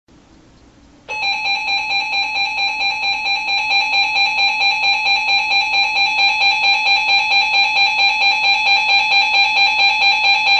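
Weather alert radio's alarm going off for an incoming severe thunderstorm warning: a loud electronic alert tone that starts about a second in and sounds steadily for about ten seconds, pulsing rapidly.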